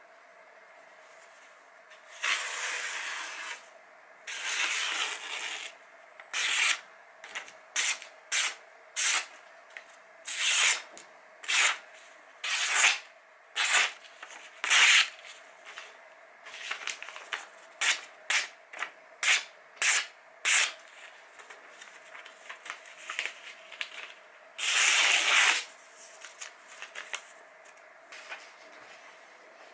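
Parang blade slicing through a sheet of glossy paper, again and again: about two dozen short papery rasps, with a few longer drawn-out cuts near the start and near the end. A paper-slicing test of the edge's sharpness.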